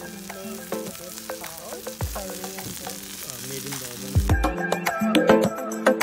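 Hot stone bowl of bibimbap sizzling, a steady hiss, over background music; the sizzling stops about four seconds in and the music with its percussion carries on alone.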